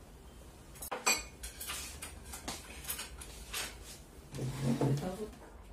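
Chopsticks and porcelain bowls clinking during a hot-pot meal: a run of light clinks and taps, the sharpest about a second in, then a louder, lower sound near the end.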